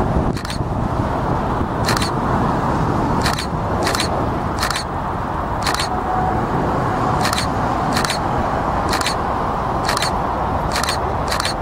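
Steady rumble of a jet airliner's engines as it lands, with about a dozen sharp clicks, roughly one a second at uneven spacing, like camera shutters firing.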